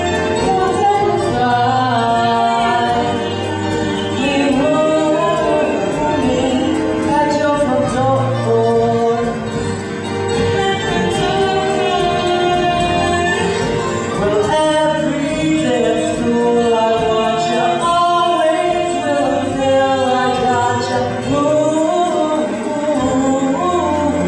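A live musical-theatre song: several voices singing together in harmony over steady low accompaniment.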